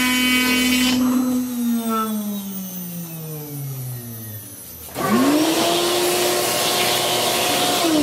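CNC router spindle running at the end of a job, then switched off and winding down in a long falling whine. About five seconds in a loud rushing motor, like a shop vacuum, starts suddenly with a quickly rising whine that holds steady, then starts to fall just at the end.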